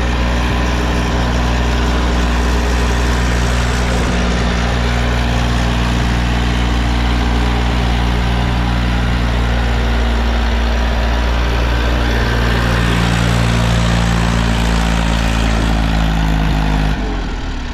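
Water-cooled diesel engine of an Eicher tractor running steadily and loud, its pitch shifting slightly about two-thirds of the way through, then dropping away suddenly near the end.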